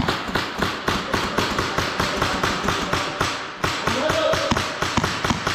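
Airsoft guns firing: a rapid, uneven string of sharp clicks and snaps that runs on without a break.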